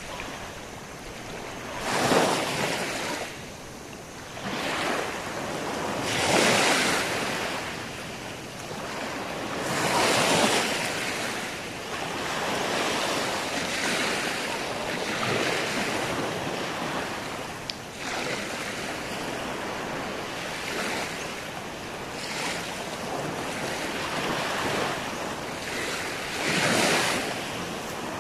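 Small waves breaking and washing up on a sandy beach, the surf swelling every few seconds, with some wind on the microphone.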